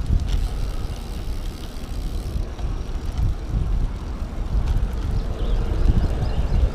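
Wind buffeting the microphone over the rolling noise of a carbon road bike's tyres on a concrete path: an uneven low rumble.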